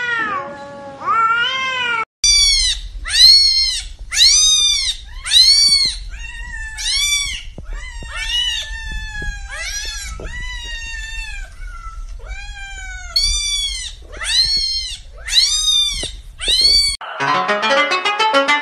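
A cat's drawn-out yowl, cut off about two seconds in, then a kitten's high meows repeated about once a second, each a short call that rises and falls in pitch. Plucked-string music takes over near the end.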